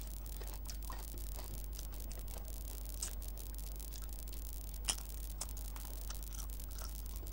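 Hand-eating sounds: fingers gathering rice on a plate and soft mouth sounds, with scattered small clicks and one sharper click about five seconds in, over a steady low hum.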